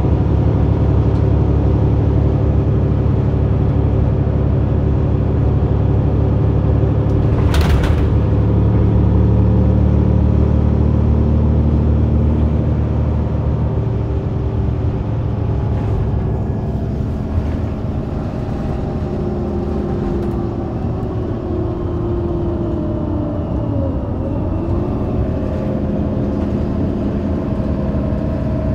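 Mercedes-Benz O530 Citaro bus's diesel engine and Voith automatic transmission, heard from directly above the rear engine, running under load and then easing off about halfway through. A brief hiss about a quarter of the way in, and a gently rising whine in the later part as the bus picks up speed.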